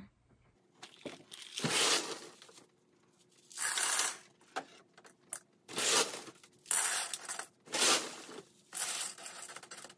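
Hydroton expanded clay pebbles scooped with a cup from a plastic bag and poured into a plastic hydroponic net pot, rattling as they fall. The pebbles go in as about six short rushes, each under a second, with brief pauses between.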